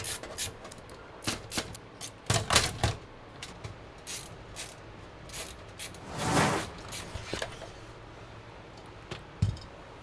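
Small metallic clicks and knocks of a screwdriver driving motherboard screws into the standoffs of a steel PC case, with the case and parts being handled. There are two louder, longer rattles, about two and a half and six and a half seconds in.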